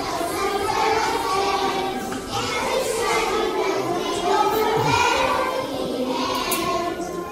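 A choir of young children singing a song together, their voices carrying in a large hall.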